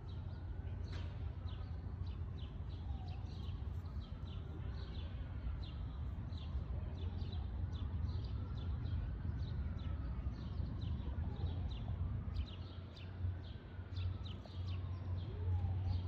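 Small birds chirping over and over, two or three chirps a second, above a steady low city rumble. A faint emergency-vehicle siren slowly wails up and down.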